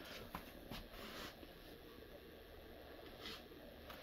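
Quiet room tone with a few faint clicks in the first second and two short rustles, one about a second in and one near three seconds.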